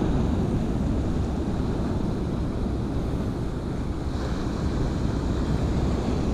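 Steady wind noise on the microphone over the wash of sea waves against the rocks.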